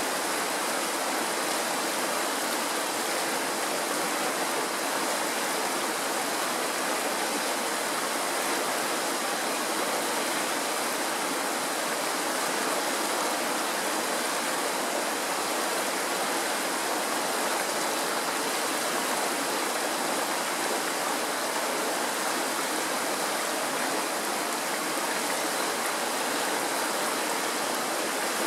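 Shallow mountain stream running fast over rocks in small riffles: a steady, even rush of water.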